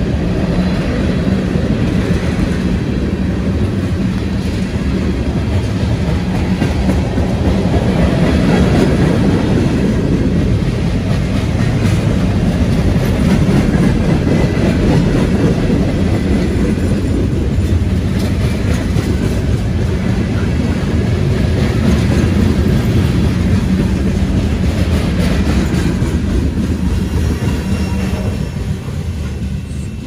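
Freight train's tank cars and hopper cars rolling past: a steady, loud rumble of steel wheels on the rails.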